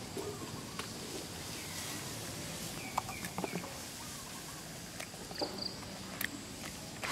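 Outdoor ambience with faint bird calls, a few short chirps and clucks, and several sharp clicks and taps scattered through.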